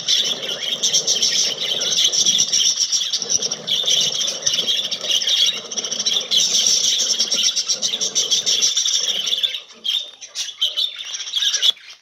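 A colony of budgerigars chattering all at once in a dense, high-pitched twittering. In the last couple of seconds it breaks up into scattered calls.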